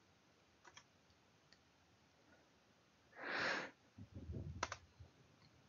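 Faint computer mouse clicks, with a short breath near the microphone about three seconds in, followed by a low rumble and another click.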